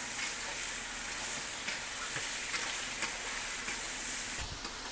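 Chicken pieces sizzling in oil and spices in a wok over a wood fire, stirred with a spatula that gives a few faint scrapes: chicken kosha at the slow-frying stage. The steady high sizzle drops away shortly before the end.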